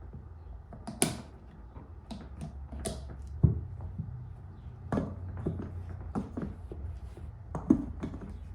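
Scattered clicks and knocks of objects being handled, about half a dozen sharp ones, over a low steady hum.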